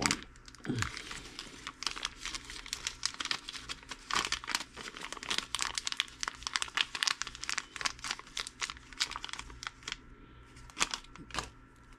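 Thin clear plastic parts bag crinkling as it is handled and worked open to get a small pinion gear out. The crackling is dense and irregular for most of the time, then thins out near the end with a couple of sharper clicks.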